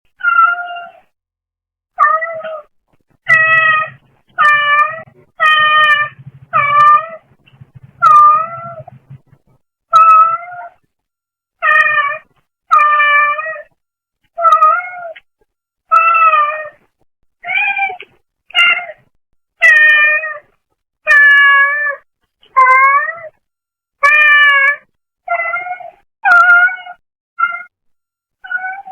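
A brown tabby cat meowing over and over, more than twenty short meows at about one a second, picked up by a pet camera's microphone. A faint low buzz runs under the meows for several seconds early on.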